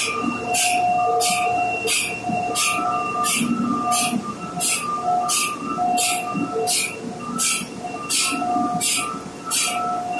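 Machinery running in a ship's pump and machinery space: a steady hum with whining tones that come and go. Over it, a regular hiss repeats about one and a half times a second.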